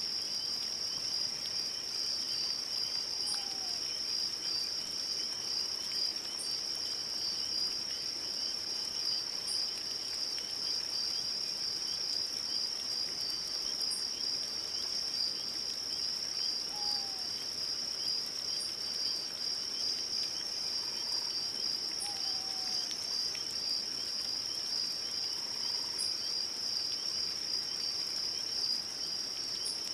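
Crickets chirring in a continuous high-pitched trill, with a few faint short falling calls from another animal now and then.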